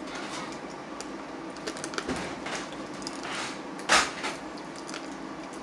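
Small clicks and crackles of a cooked prawn's shell being peeled by hand, with one louder sharp click about four seconds in.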